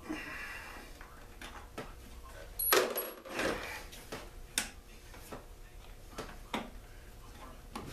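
Scattered metal clicks and knocks from tools and parts being handled on a small two-stroke generator during carburetor removal. The loudest is a clatter with a brief ringing about three seconds in.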